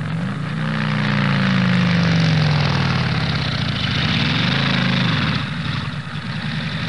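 An engine revving: its pitch rises just after the start and sinks slowly over the next few seconds, then rises and falls again about four to five seconds in.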